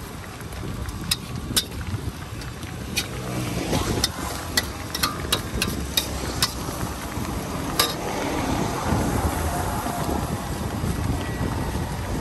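A metal spatula clacking against a wok in sharp, irregular strikes as fried noodles are stir-fried, over a steady low rumble.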